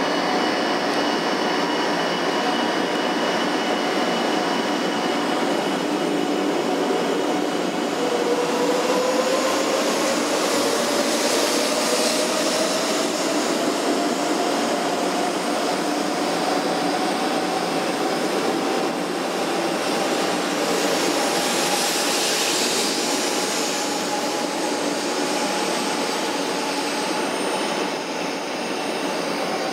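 JR West 500 series Shinkansen pulling out and gathering speed. The traction-motor whine climbs steadily in pitch from about eight seconds in, over the steady rush of the cars rolling past.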